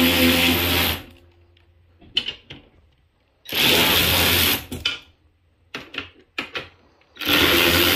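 Cordless electric ratchet with an extension spinning out 12 mm rack bolts. It runs three times, each a steady motor whine lasting about a second: one stopping about a second in, one about three and a half seconds in, one near the end. Short clicks of the socket and bolts come in between.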